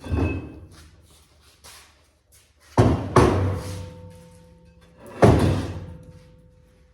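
Four heavy metal clanks, the later ones each leaving a ringing tone that dies away over a second or two: steel brake parts being knocked and handled while a Dana 80 rear axle's drum brake is taken apart.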